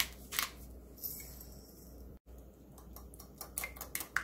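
A salt shaker tapped over raw eggs in a glass measuring cup, then, from about three seconds in, a wire whisk beating the eggs with quick, light clicks of the wires against the glass.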